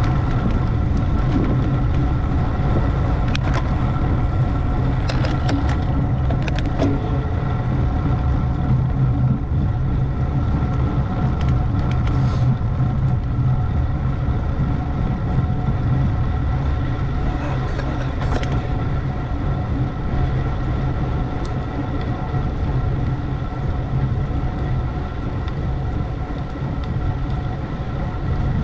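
Steady road and wind rumble of travel along a road, heavy in the low end, with a few faint clicks scattered through it.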